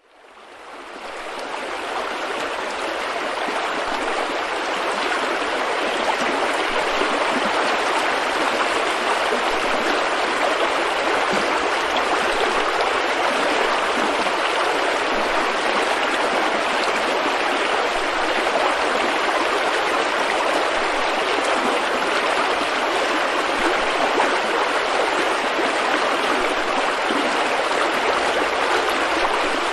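River rapids: fast water rushing steadily over rocks, a continuous broad hiss that fades in over the first couple of seconds.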